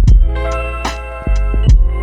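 Instrumental music: layered sustained notes over a deep bass hit and a sharp percussion tap about every 0.8 seconds.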